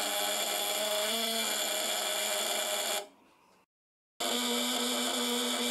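Homemade fish-stunner's vibrating contact breaker (a widia-steel platina on a vibrating arm, wired to a coil and 12-volt battery) buzzing steadily. Its points are set about 2–3 mm apart so it sounds fairly light. It stops about three seconds in and starts again about a second later, buzzing at a slightly different pitch.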